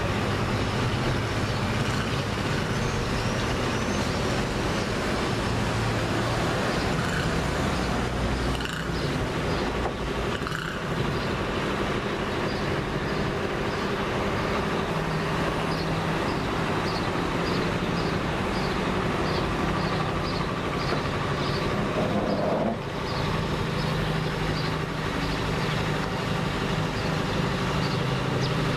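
Town traffic noise: vehicle engines running steadily as a continuous hum. A short high chirp repeats about twice a second through the middle.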